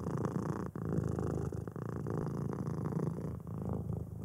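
A cat purring steadily.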